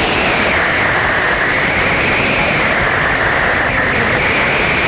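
Wind blowing across the microphone of a wrist-mounted camera during a tandem parachute descent under canopy: a steady, loud rush of noise with a high whistle that wavers slightly in pitch.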